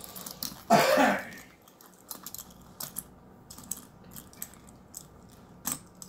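A single cough about a second in, then light clicks and taps of a necklace's metal-framed, faceted blue marquise stones being flipped over one by one against a tabletop.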